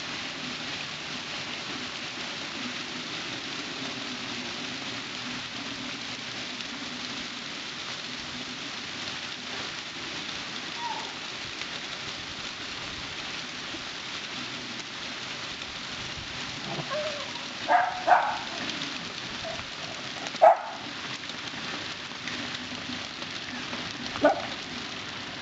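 Pea-sized hail mixed with rain pelting a concrete patio in a steady, even hiss of impacts. A dog barks a few times in the last third: a quick pair, then two single barks a few seconds apart.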